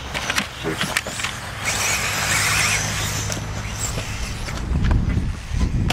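Electric 1/10-scale RC off-road cars running on a dirt track. There are scattered sharp clicks and ticks, and a high motor whine with tyre hiss as a car passes about two seconds in. A low rumble comes near the end.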